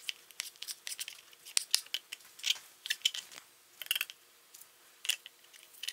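Fillet knife slicing through fat and silver skin on a raw sandhill crane breast on a plastic cutting board: a run of short, irregular cutting strokes.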